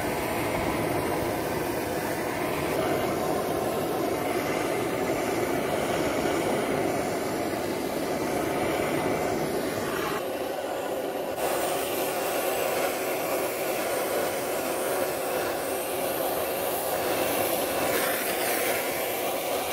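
Handheld gas blowtorch flame rushing steadily as it scorches a wooden axe handle. Its sound dulls briefly about ten seconds in.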